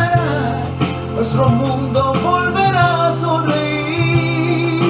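Music played on an electronic keyboard: a held bass note under a gliding melody line, with singing over it.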